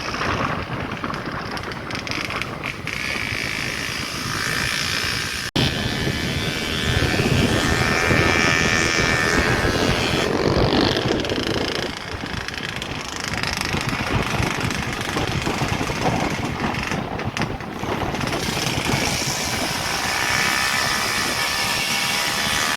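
A vehicle's engine running on the move, with heavy wind noise on the microphone.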